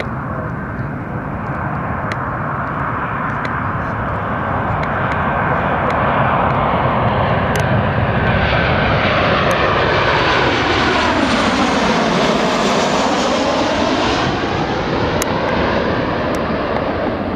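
Boeing 737 jet airliner on landing approach passing low overhead: a steady jet engine rumble that grows louder through the first half. About two-thirds through, a sweeping, phasing shift in tone falls and rises again as it goes over.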